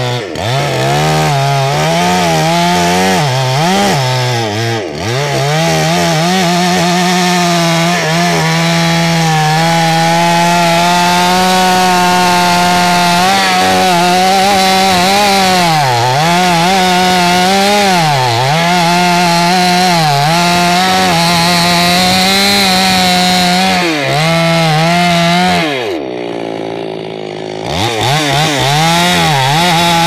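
Two-stroke Husqvarna chainsaw at high revs cutting into a tree trunk, its pitch sagging and recovering again and again as the chain bogs in the wood. Near the end it drops briefly to a low idle, then revs back up and goes on cutting.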